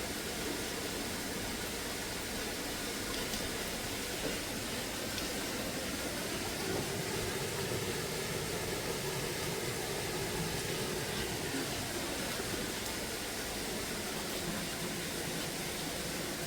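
Steady hiss of falling rain, with a faint low hum swelling and fading in the middle.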